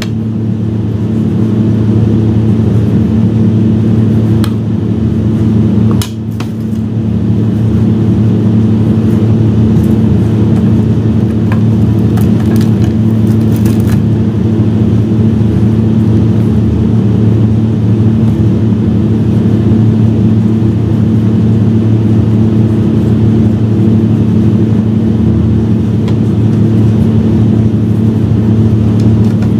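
Steady, loud mechanical hum at one constant low pitch, like a motor or fan running. A few faint clicks come through it now and then.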